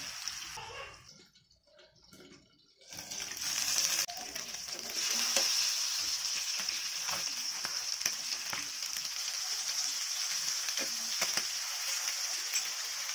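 Fish steaks shallow-frying in hot oil in a seasoned cast-iron pan: a steady sizzle with small crackles and pops. The sizzle drops out about a second in and comes back about three seconds in.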